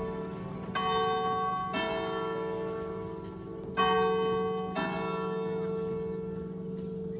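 Church bells of Sainte-Catherine's detached bell tower ringing: four strokes in two pairs, the strokes of each pair about a second apart. Each stroke rings on in a long hum.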